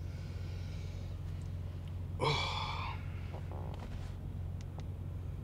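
A man's sleepy groan as he stretches awake, once and briefly, about two seconds in, with a fainter breath just before it. A steady low hum runs underneath.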